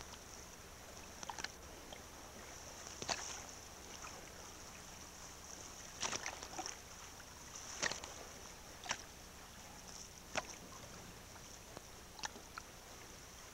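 Choppy lake water sloshing at the waterline against a ship's hull and shoreline rock, with about seven sharp slaps and splashes at irregular intervals of one to two seconds, over a steady faint high hiss.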